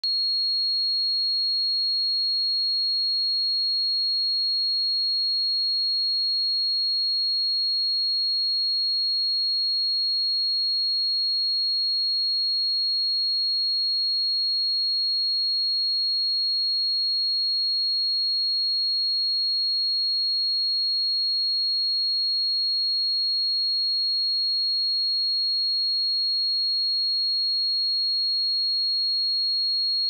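A pure 4295 Hz sine-wave test tone, held at one steady pitch and level throughout.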